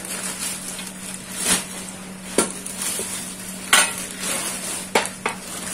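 Clear plastic bag rustling and crinkling as a new motorcycle exhaust is pulled out of it, with five sharp clinks and knocks of the metal pipe, the loudest a little past the middle.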